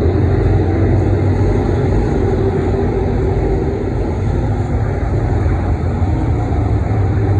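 IMCA Modified dirt-track race cars' V8 engines running hard as the field laps the oval, a loud, steady drone.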